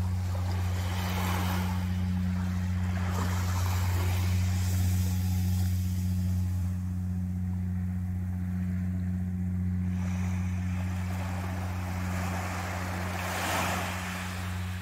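Small waves washing gently onto a sandy beach, swelling and ebbing a few times, strongest near the end. Under them runs a steady low hum.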